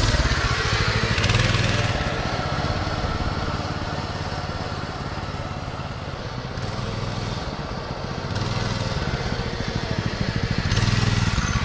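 Massimo MB200 mini bike's 196cc single-cylinder four-stroke engine running under throttle as the bike pulls away. It fades as the bike rides off, then grows louder again as it comes back near the end.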